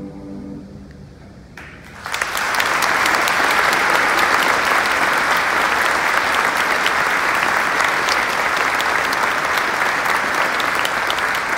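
The choir's last held chord fades out in the first second or so. About two seconds in, a large audience starts applauding and keeps clapping steadily.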